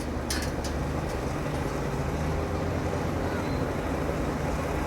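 Bulldozer's diesel engine running steadily with a low drone, with a few sharp clicks in the first second.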